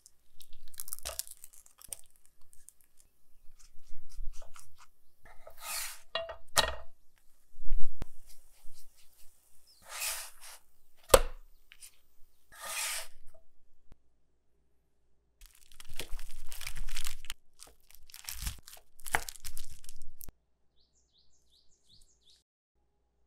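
Food being handled and cut on a wooden cutting board: short bursts of crisp crunching and tearing with a few sharp taps.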